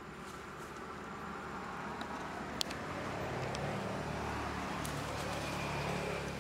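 Steady hum of a motor vehicle's engine that grows louder over the first few seconds, with a single sharp click about two and a half seconds in.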